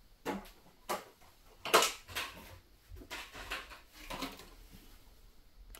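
A handful of irregular soft knocks and rustles, spaced unevenly, the loudest a little under two seconds in.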